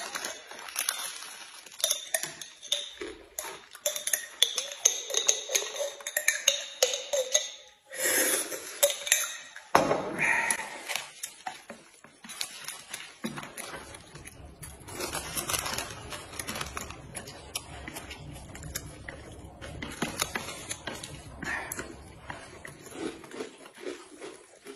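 Chopsticks clicking and scraping against a ceramic plate as a plate of noodles is stirred and mixed, with the crinkle of a plastic sachet being handled.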